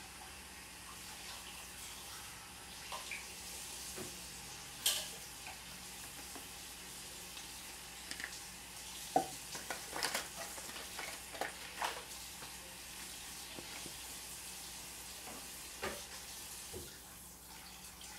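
A handful of small, scattered clicks and taps as extract bottles are opened and a metal measuring spoon is handled over the batter bowl. They sit over a faint, steady background hiss.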